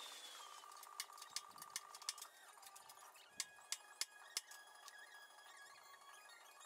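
Faint taps of a small hammer on a center punch against steel flat bar: four sharp ticks about a third of a second apart a little past halfway, after a scatter of lighter clicks from tools being picked up and set down on the steel bench.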